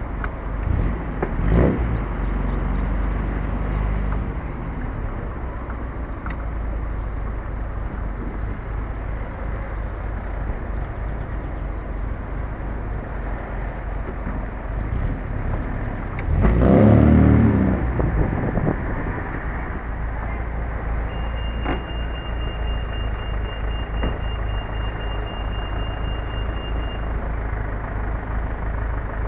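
1967 MGB's 1.8-litre four-cylinder engine running steadily with traffic noise around it, with a louder surge about halfway through. Faint birds chirp and a steady high tone sounds near the end.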